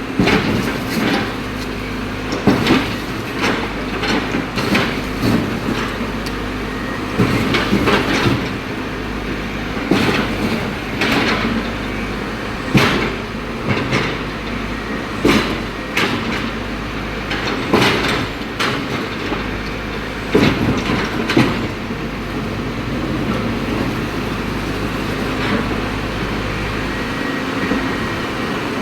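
Caterpillar excavator's diesel engine running steadily under irregular sharp cracks and clanks of concrete being broken up. The impacts thin out over the last several seconds.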